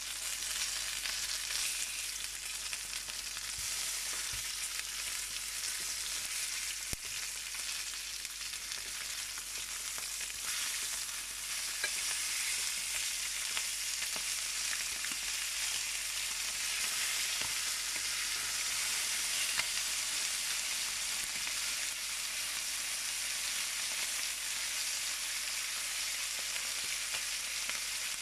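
Chicken pieces in olive oil frying in a nonstick pan: a steady sizzle, with a few light clicks of a fork against the pan as the pieces are turned.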